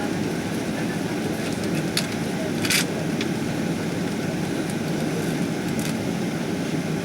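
Steady rumble of jet engine and airflow noise heard inside the cabin of a Boeing 777-200ER, broken by a few brief clicks and a short hiss about two and a half seconds in.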